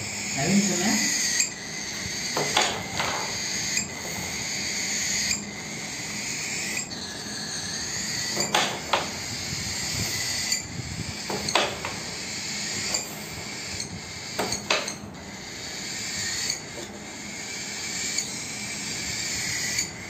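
Young cockatiels giving repeated high, raspy calls, each about a second long, restarting again and again. A few sharp clicks are mixed in.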